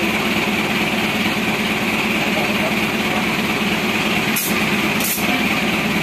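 Steady mechanical hum with a constant airy hiss as a tire is inflated through a dial-gauge air inflator, with two short, sharp hisses of air about four and five seconds in.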